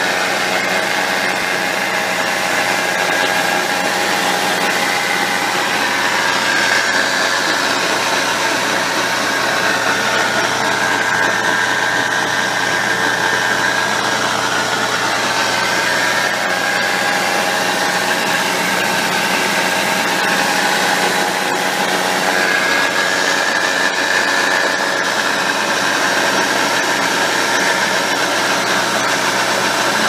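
Subaru Impreza WRX STi's 6-speed manual transmission running, heard from underneath the car: a steady mechanical din with a high whine that drifts slightly up and down. This is the abnormal transmission noise, which was traced to a bearing in the extension (rear) case.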